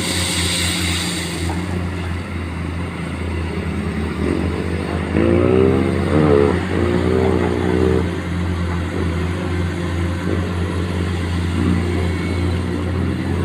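Diesel engine of a Komatsu PC210 hydraulic excavator running steadily, with a short hiss in the first second. About five seconds in, it grows louder with a wavering whine that rises and falls in pitch for about three seconds, then settles back.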